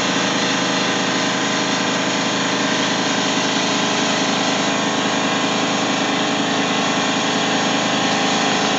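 A motor-driven machine running steadily: an even drone with several held tones and a hiss, as the vehicle is being jacked up. It cuts off abruptly at the end.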